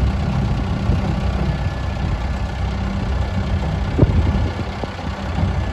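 2005 Kubota M95S tractor's four-cylinder diesel engine idling steadily while the front-loader bucket is lowered, with a single clunk about four seconds in.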